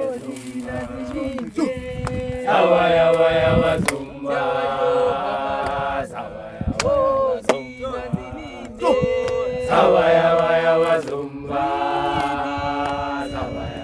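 A group of young men chanting a team song together, in sung phrases of a second or two with short breaks between them, and a few sharp knocks among the phrases.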